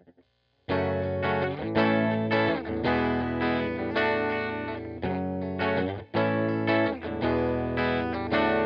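Instrumental song intro: a guitar run through effects playing chords in repeated strokes, starting sharply about a second in.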